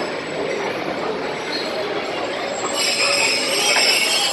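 Pakistan Railways passenger coaches rolling along the platform with a steady rumble of wheels on rail. A high-pitched wheel squeal rises over it about three seconds in.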